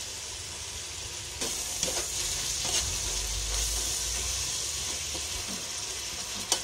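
Shredded chicken in oyster sauce, soy sauce and sesame oil sizzling in a metal pot as a metal ladle stirs it. The hiss grows louder about a second and a half in, with a few light clinks of the ladle against the pot and a sharper one near the end.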